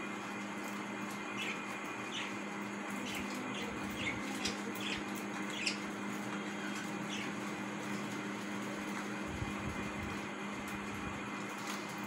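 Budgerigars giving short, scattered chirps, most of them in the first half, over a steady low hum.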